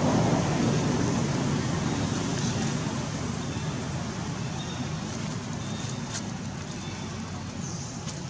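A steady low rumble with hiss, like distant road traffic, slowly fading away.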